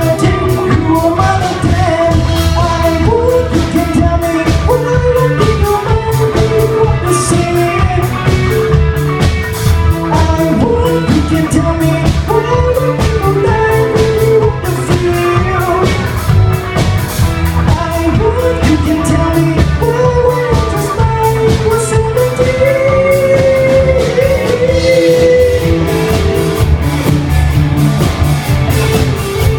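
Live rock band playing: a lead singer over guitar and drum kit.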